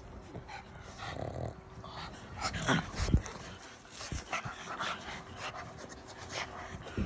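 Pug panting and breathing noisily right at the microphone, with irregular short noises, the loudest around the middle.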